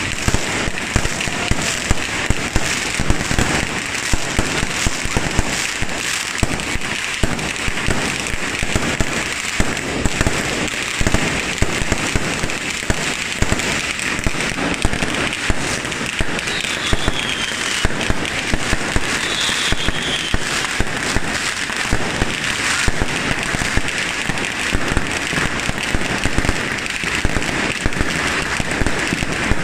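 Fireworks going off without a break: aerial shells bursting overhead in a dense run of bangs and crackles. A couple of short falling whistles come a little past halfway.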